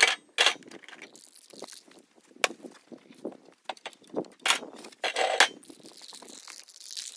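Footsteps crunching irregularly over dry leaves and twigs close by, with rustling of brush.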